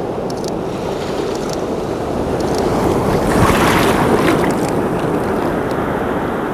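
Ocean surf breaking on a beach, with wind on the microphone. A wave swells and washes in about three seconds in, then eases back to a steady wash.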